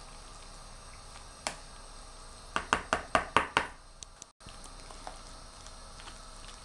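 Metal spoon knocking against the bowl while a dressed salad is stirred: one click, then a quick run of about six sharp clicks around the middle.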